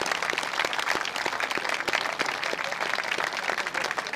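A small outdoor audience applauding a finished song: many hands clapping at once, with the individual claps still distinct.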